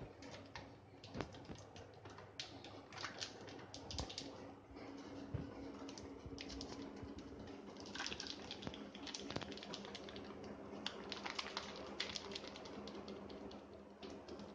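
Plastic flour packet crinkling and rustling in the hands as flour is shaken out of it into a steel pot, in irregular crackles, over a faint steady hum.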